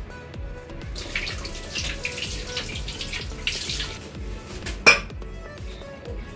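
Upbeat background dance music with a steady beat. A kitchen tap runs for about three seconds, and one sharp metallic clink comes about five seconds in.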